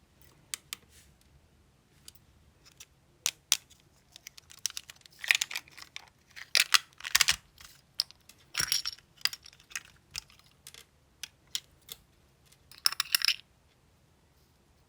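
Irregular small clicks and taps with a few short scratchy rustles, as of small hard objects being handled and set down.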